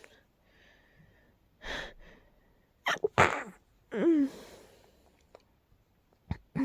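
A person's stifled, breathy sneezes in quick succession, each held back into a short muffled burst of breath, one ending in a brief falling voiced sound. They come from a tickly nose.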